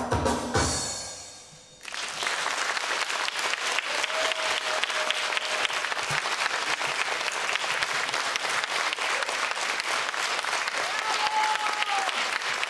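Drum-driven dance music stops about a second in, and after a short lull an audience breaks into steady applause.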